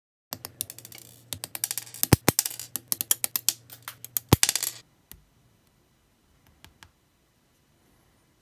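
Plastic parts of a Bandai SD Gundam kit being cut off the runner with hobby nippers: a rapid run of plastic clicks and rattles, broken by several sharp snaps as the cutter goes through the gates. It stops suddenly about five seconds in, and a few faint clicks of small plastic parts being handled follow.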